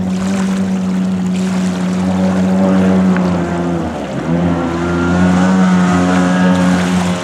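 Mini jet boat powered by a Kawasaki 550 jet ski's two-stroke engine running hard at speed. The engine note dips briefly about four seconds in, then climbs back up, over the rush of the jet and spray on the water.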